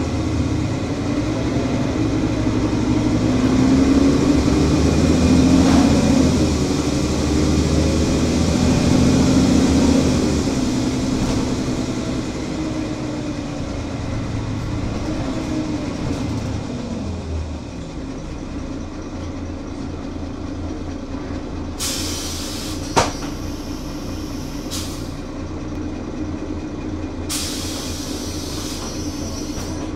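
Mercedes-Benz Citaro bus's OM 457 hLA straight-six diesel running with the bus standing still. It is louder with some shifting pitch over the first ten seconds or so, then settles to a steady idle. Two bursts of air hiss from the pneumatic system come in the second half, with a sharp click about 23 seconds in.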